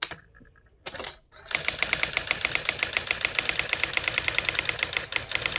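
Brother AX-20 electronic daisywheel typewriter printing text sent from the computer. A few single knocks in the first second and a half, then a rapid, even run of character strikes, about ten a second, broken briefly near the end.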